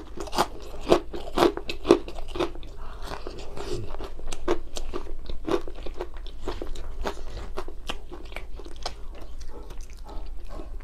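Close-miked mouth sounds of a person eating rice and grilled fish by hand: wet chewing with irregular clicks and smacks, a few louder ones in the first two seconds.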